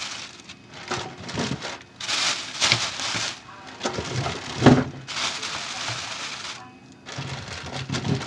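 Thin plastic bag crinkling and rustling in irregular bursts as ears of corn are handled and pulled out of it.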